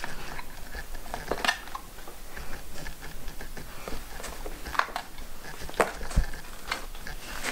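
Light, scattered clicks and clatter of small toys being handled on a tabletop, with one soft low thump about six seconds in.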